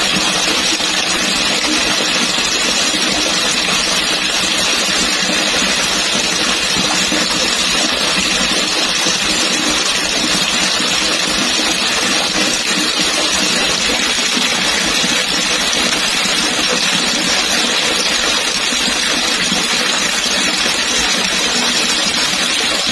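Heavy rain pouring down in streams and splashing hard onto the ground: a dense, steady splashing rush.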